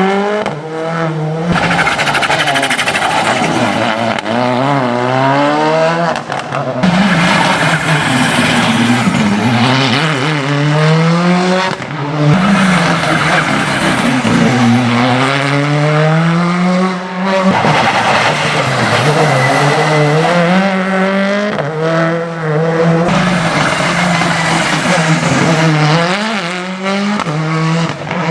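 Rally cars accelerating hard on a special stage, one after another. Each engine revs up and drops back at every gear change, and the sound switches to a new car about every five seconds.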